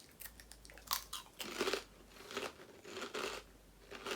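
Kettle-style potato chips being bitten and chewed close to the microphone: a run of irregular, very crunchy crunches.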